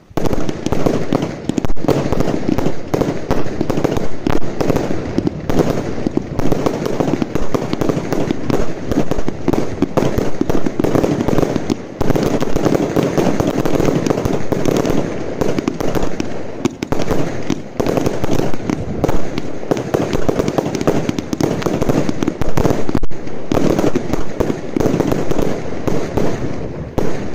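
Zeus Fireworks 'Legend' firework barrage firing: a fast, unbroken string of launch shots and aerial bursts with two brief dips in the firing, dying away at the very end.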